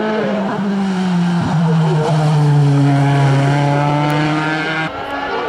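Open-wheel single-seater race car's engine running hard at high revs as the car accelerates away. The pitch drops about a second and a half in, then holds steady until it cuts off abruptly near the end.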